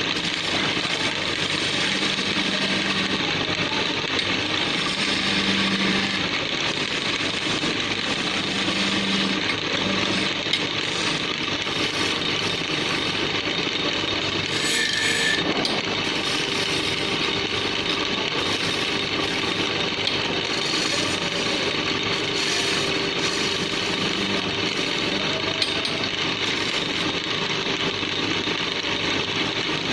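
Wood lathe running while a turning tool cuts the spinning wood of a table leg: a steady scraping, cutting noise over the machine's hum.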